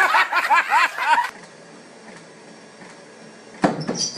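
People laughing for about a second, then a cut to a low steady background. Near the end comes a sudden thump and clatter as a man stumbles and falls off a running treadmill.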